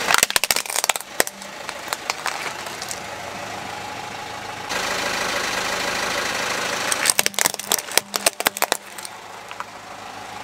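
Plastic toy monster trucks cracking and snapping as a car tyre rolls over them, in two bursts of sharp cracks, one at the start and one about seven seconds in. Between the bursts the car's engine idles steadily.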